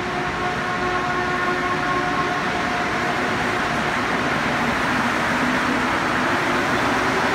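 Rubber-tyred Montreal Metro train moving alongside the platform: electric traction motors whine in tones that shift in pitch, under a rushing noise of tyres and running gear that grows louder.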